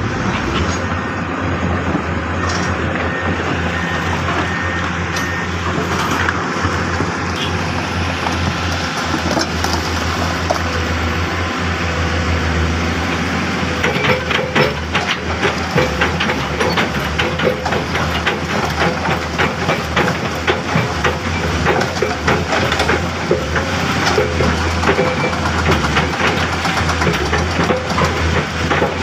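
Diesel engines of heavy earthmoving machinery running steadily, with a clattering of metal on rock that sets in about halfway through.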